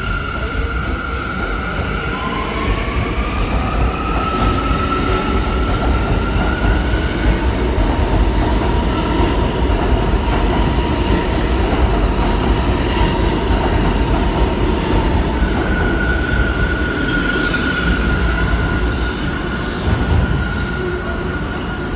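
New York City Subway C train pulling out of the station and running past: a steady rumble of wheels on rail with repeated clacking. Wheel squeal rises in pitch in the first few seconds and returns toward the end, as the last car goes by.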